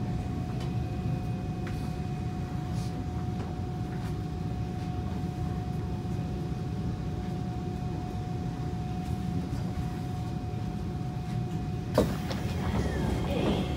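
Kawasaki C151 metro train running, heard inside the car: a steady low rumble with a thin steady electric hum. Near the end comes a sharp knock, followed by squeaks and creaks.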